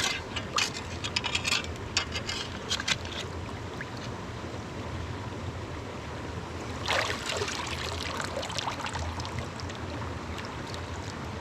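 A gem-prospecting pan of river gravel being worked in water, with small stones clicking and rattling in the first few seconds and a louder slosh of water about seven seconds in, over the steady sound of the running river.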